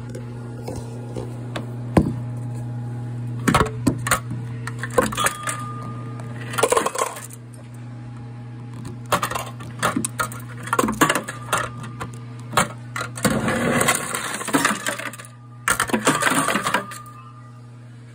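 Close handling noises: a run of clinks, knocks and rustles, busiest near the end. Under them is a steady low electrical hum that drops away about six and a half seconds in.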